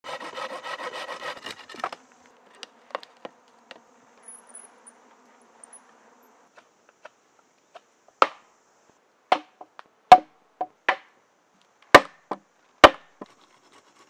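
An insect buzzing close up for the first two seconds, then fainter. From about eight seconds in come a dozen or so sharp, irregular wooden knocks of a knife striking into wood, the three loudest near the end.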